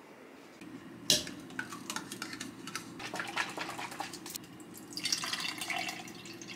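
A metal spoon clicking and knocking against a plastic blender cup as yogurt is spooned in, then soy milk poured from a carton into the cup for about a second and a half near the end.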